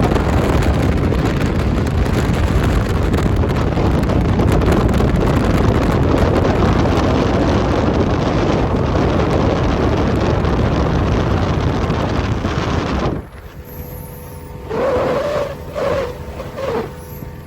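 Loud rushing wind noise buffeting the microphone, which cuts off suddenly about thirteen seconds in. It is followed by a few short, faint voice-like sounds.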